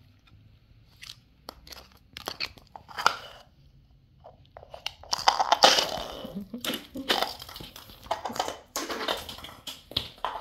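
Pomeranian playing with an orange plastic ball on a tiled floor: irregular crunching and scratchy scuffling, sparse at first and louder and busier from about halfway through.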